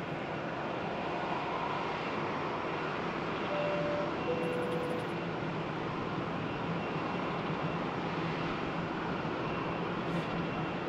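Jet airliner engines running, a steady, even rush of engine noise with a low hum beneath it.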